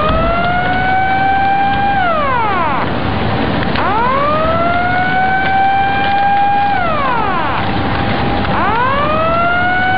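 A siren wailing in repeated cycles: its pitch rises, holds, then falls, about every four to five seconds, over a steady noisy rumble.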